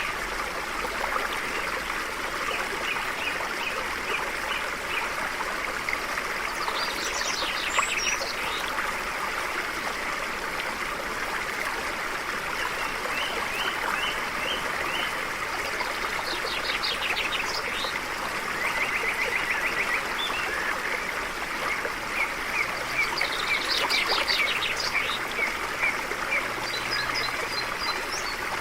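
A stream flowing steadily, with songbirds singing over it: runs of short repeated notes and quick trills come several times.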